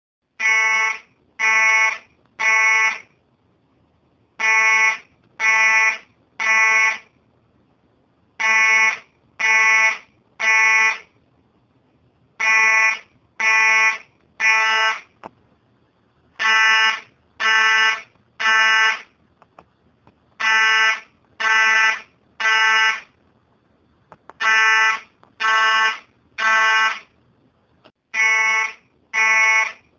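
Fire alarm sounding a buzzy horn tone in the temporal-three evacuation pattern: three short blasts about a second apart, then a pause, repeating every four seconds.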